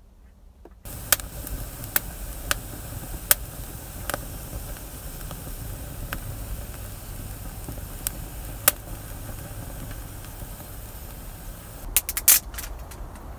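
Freshly lit kindling of dry twigs and needles crackling in a stone fireplace: sharp single pops every second or so over a steady rushing hiss, starting suddenly about a second in. Near the end a quick cluster of louder snaps and knocks as the fire is tended.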